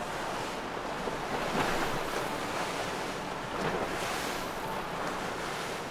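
Wind buffeting the microphone over rushing water and surf: a steady hiss with no clear engine note.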